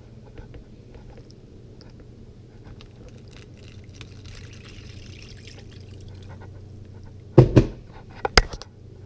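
Brine being poured into a plastic zip-top bag, a soft trickle of liquid. Near the end there are two sharp, loud knocks about a second apart.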